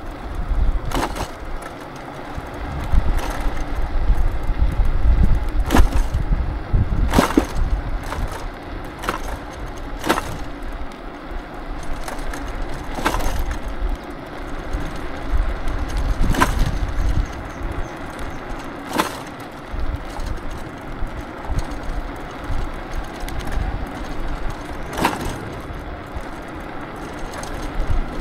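Electric scooter ridden over a rough road: a low road and wind rumble that swells and fades, with a sharp knock or clack every two to three seconds as the scooter jolts over bumps.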